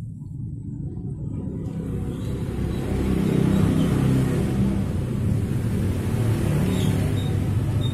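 A car's engine running close by: a low rumble that builds over the first three seconds and then holds steady.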